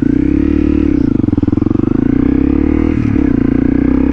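Motorcycle engine pulling away from a stop and accelerating, its note rising, falling back and climbing again, with a brief break about three seconds in.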